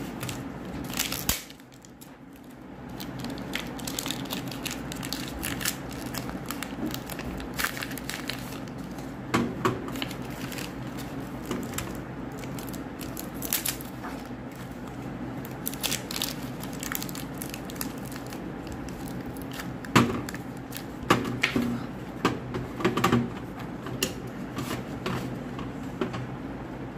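Paper soap wrappers crinkling and tearing as bars of soap are unwrapped by hand, with now and then a sharp click of a bar knocking on a steel plate, over a steady low hum.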